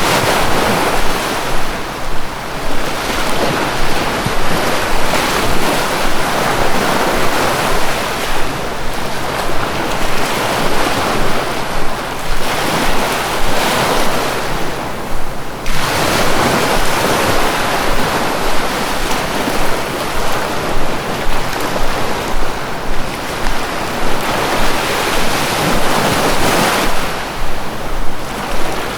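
Sea waves breaking and washing on a shore, a continuous rushing that swells and ebbs in slow surges, briefly easing about halfway through before the next wave builds.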